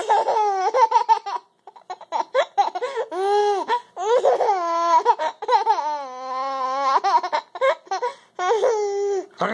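Baby laughing and squealing in repeated high-pitched bursts, with one longer held vocal sound about six seconds in.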